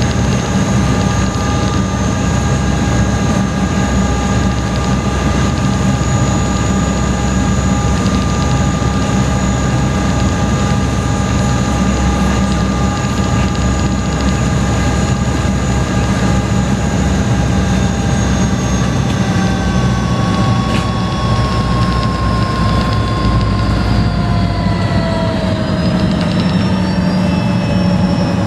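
High-speed passenger ferry's engines running loud and steady, heard from inside the cabin, a low drone with several whining tones. From about two-thirds of the way through, the whine falls in pitch as the engines ease off and the boat slows on its approach to the pier.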